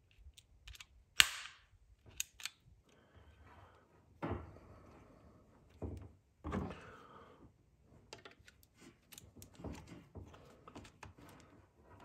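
Faint handling clicks and knocks of a GFCI receptacle and a plug-in outlet tester. One sharp snap about a second in as the receptacle's button is pressed, a few soft knocks, then a run of small clicks near the end as the tester is pushed into the outlet.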